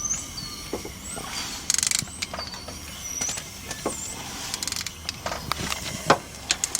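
Hand ratchet wrench clicking in short runs as the crankshaft of a Mini Cooper S W11 engine is turned by hand, with a few metallic knocks between the runs. The rotation spreads assembly lube over freshly installed connecting-rod bearings.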